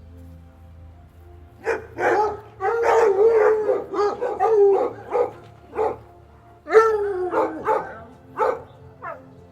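A dog barking repeatedly from about two seconds in, some barks drawn out into longer wavering, howl-like calls.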